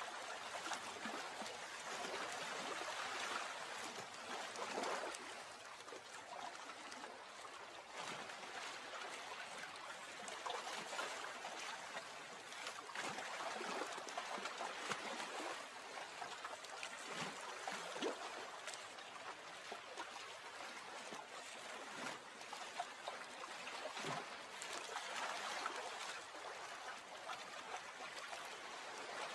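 Lake water gently lapping and trickling: a soft, steady wash with many small splashy flickers and gentle swells.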